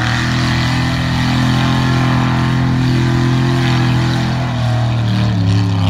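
Lifted OBS Chevy pickup mud truck's engine running hard under load at steady revs as it churns through a mud pit, with mud and water spraying off the tyres; the engine note dips and climbs again near the end.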